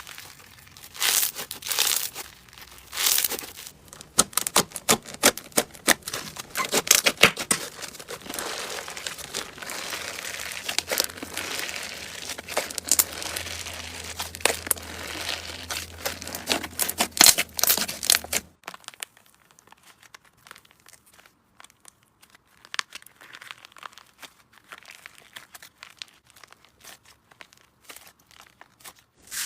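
Slime being squeezed and worked by hand, giving dense crackling and popping clicks. About two-thirds of the way through it cuts abruptly to a quieter stretch of sparse crackles.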